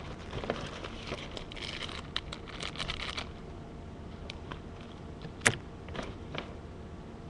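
Clear plastic squishy wrappers crinkling and crackling as packaged squishies are handled and set down on a pile. The crinkling is dense for the first three seconds, then gives way to scattered clicks, the loudest a sharp tap about five and a half seconds in.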